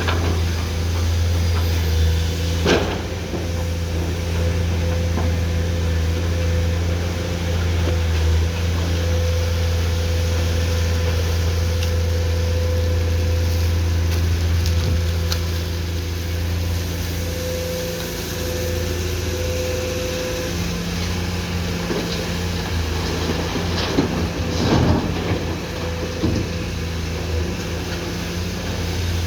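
Komatsu PC210-10M0 excavator's diesel engine running steadily under load, with a steady higher tone over the low engine hum. A few sharp knocks sound about three seconds in and again near the end.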